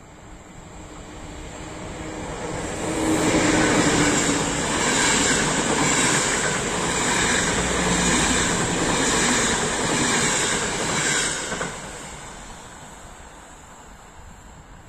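Passenger train hauled by a Siemens electric locomotive running past at speed: wheels on rail building to a loud rumble and hiss with a regular beat about once a second as the coaches go by, dropping sharply as the last coach passes, then fading away.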